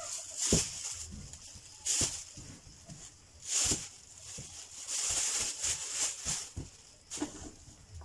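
Rustling and crackling of rambutan fruit being pulled from their branches and dropped into a plastic bag, in several separate handfuls.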